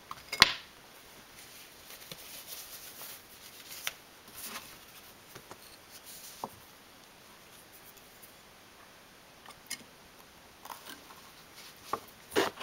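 Small clicks and light scraping of a metal hobby-knife blade being worked into the seam of an iPod Classic's case to reach a retaining tab, with a sharp click about half a second in and a few more near the end.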